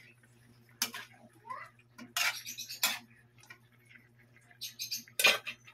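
Metal ladle stirring a pot of chicken stew in a metal wok, clinking and scraping against the pan in a series of sharp knocks. The loudest clink comes about five seconds in.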